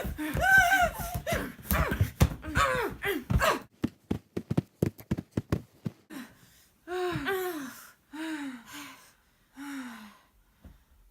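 Wordless women's vocalizing in a small room: arching voice sounds for the first few seconds, then a quick run of sharp clicks, about five a second, then four or five breathy sighs that each fall in pitch.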